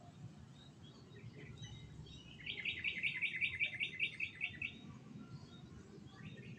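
A songbird sings a rapid trill of about a dozen quick, evenly spaced notes, lasting about two seconds and starting a couple of seconds in, with fainter scattered chirps around it.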